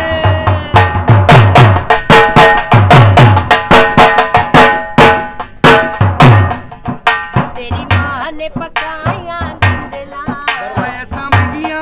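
Dhol drum played with sticks in a fast bhangra rhythm, its deep bass strokes dropping in pitch, with a steady melodic line underneath. The drumming grows sparser in the second half.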